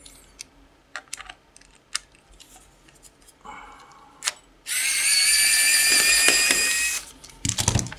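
Small electric precision screwdriver running for about two seconds, a steady high motor whine, as it backs out the single screw of a multimeter's battery cover. Light handling clicks come before it and a few knocks near the end.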